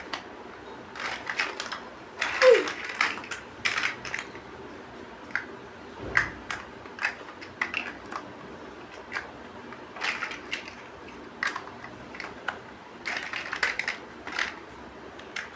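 Plastic building bricks clicking and rattling as they are handled and pressed together. The sound comes as irregular sharp clicks and short rustling bursts.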